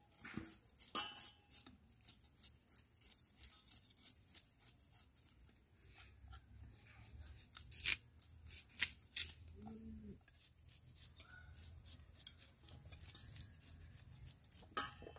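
A blade scraping and cutting small ash-coated bata fish, making a run of irregular crisp scrapes and clicks.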